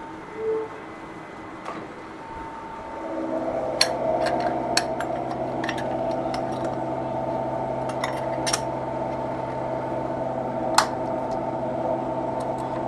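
A machine tool begins a cut on an aluminum plate about three seconds in. It settles into a steady, tonal hum with scattered sharp metallic clicks. A brief single tone sounds near the start.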